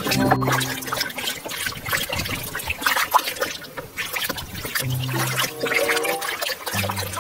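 A hand sloshing and swishing a small toy through a tub of foamy soapy water, irregular splashing throughout.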